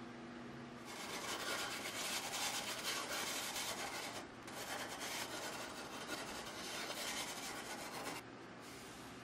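Sandpaper rubbed back and forth by hand along the flat of a W2 carbon-steel chef knife blade, a steady scratchy rasping. It starts about a second in, breaks off briefly about four seconds in, and stops shortly before the end.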